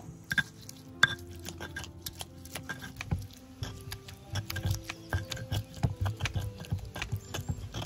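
Stone pestle grinding chili sambal in a stone mortar: irregular knocks and scrapes of stone on stone through the wet paste, the sharpest knock about a second in.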